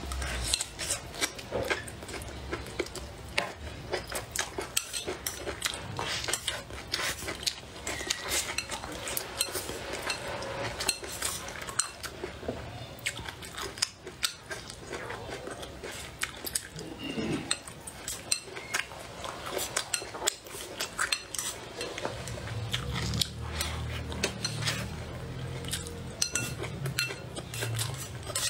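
Chopsticks clicking and scraping against a ceramic bowl in many small, irregular taps, with close-up chewing of rice and peppers. A low hum comes in near the end.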